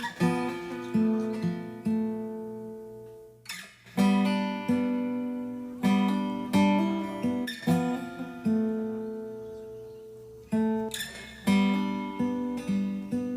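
Background music: an acoustic guitar playing chords, each one struck and left to ring and fade.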